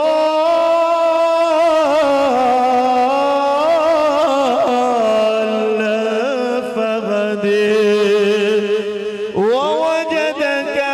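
A man reciting the Quran in the melodic tajweed style, holding long ornamented notes that waver and slowly sink in pitch. Near the end he pauses for breath and a new phrase sweeps sharply upward.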